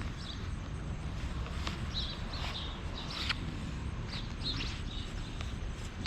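Outdoor ambience: scattered short bird chirps over a steady low rumble, with one sharp click about three seconds in.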